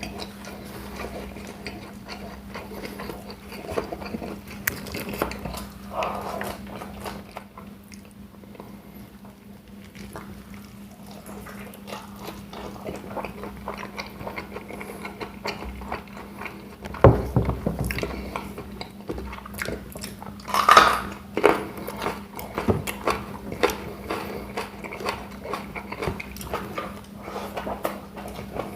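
Close-up eating sounds: biting and chewing fried chicken and rice, with small clinks of cutlery and dishes and two louder clatters a little past the middle. A steady low hum runs underneath.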